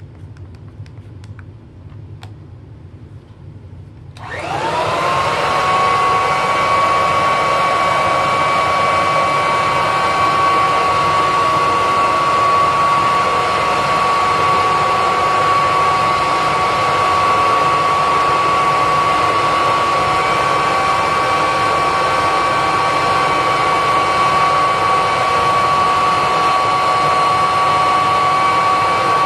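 Kirby upright vacuum switched on about four seconds in, after a few light clicks: the motor spins up with a rising whine, then runs steadily at full speed on one high fan whine. It is pulling air through a sealed airflow test box.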